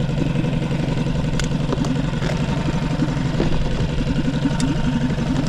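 Honda 5 hp four-stroke outboard motor running at a steady speed, pushing the inflatable skiff along.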